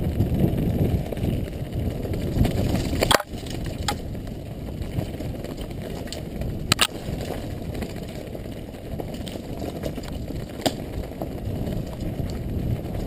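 Mountain bike rolling fast down a dirt and gravel trail: steady low rumble of tyres and wind on the helmet camera, with a few sharp clacks as the bike jolts over bumps and stones, the loudest about three seconds in.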